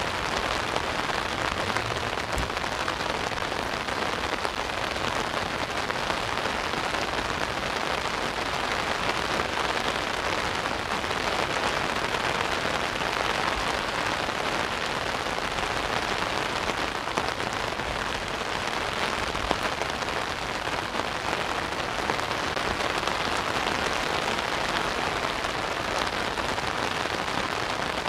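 Steady rain falling on an umbrella overhead, a dense, even patter of drops.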